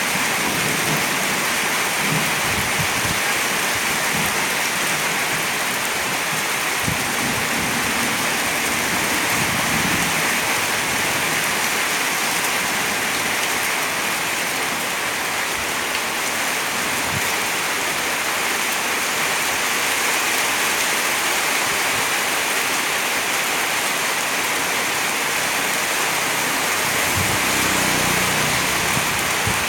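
Heavy rain pouring down steadily, a constant hiss of rain on surfaces, with a few faint low rumbles now and then.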